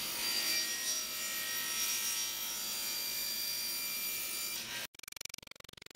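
Table saw running with a steady whine while ripping a 2x4 blank. The sound cuts off abruptly about five seconds in and quiet guitar music follows.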